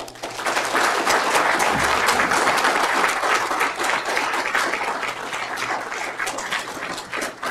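Audience applauding, starting all at once and thinning out to scattered claps near the end.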